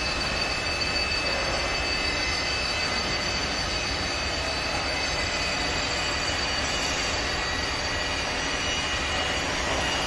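CNC wood turning lathe running, its electric spindle motors giving a steady whine of several high tones over an even hiss, with no change in pitch or level.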